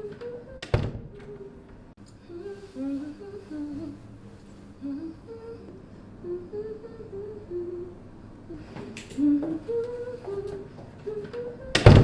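A single voice humming a slow, wandering tune. Sharp knocks come about a second in and again near the end, the last one the loudest sound.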